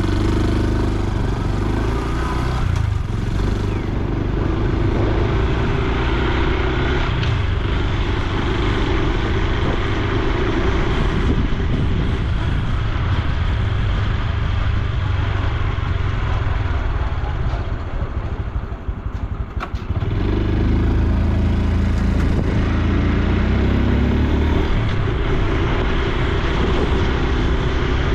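Honda Super Cub C125's single-cylinder four-stroke engine and exhaust running on the move, with the engine note shifting in pitch as it rides. The sound drops briefly about 18 seconds in, then climbs again from about 20 seconds in.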